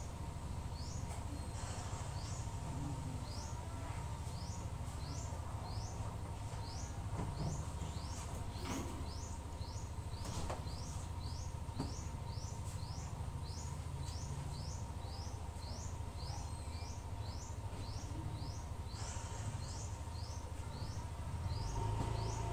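Gas stove burner running low under a covered pan: a steady low hum. Over it come short, high, rising chirps, about two a second, from a source the material does not show.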